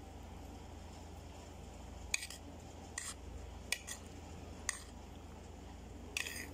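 A metal spoon clinking against an aluminium foil tray and a ceramic plate as food is served: about six short, sharp clinks at irregular intervals starting about two seconds in, the last one a little longer, like a scrape.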